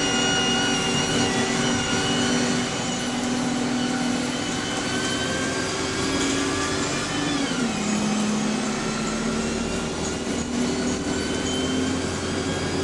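City bus running, heard from on board, with its Voith automatic gearbox whining steadily. The whine slides down in pitch about seven seconds in, then holds steady.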